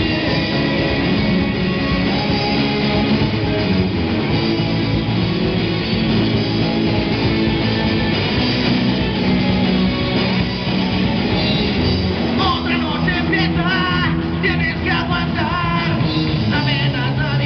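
A live rock band playing: electric guitars, bass guitar and a drum kit through amplifiers, with a man's singing voice coming in about twelve seconds in.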